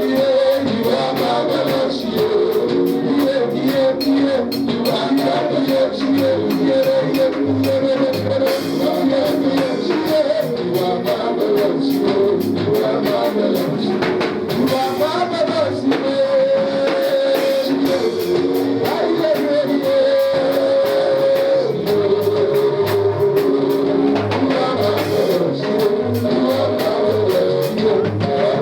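Live church praise band playing, with drums, guitar and singing: a worship chorus during an offering.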